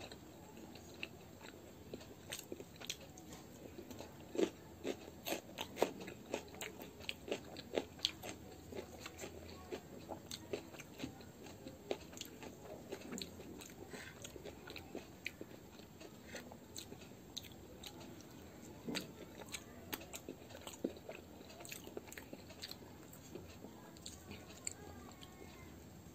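A person chewing and biting gobhi paratha dipped in curd, close to the microphone: a steady run of small clicks and soft crunches, thickest in the first half.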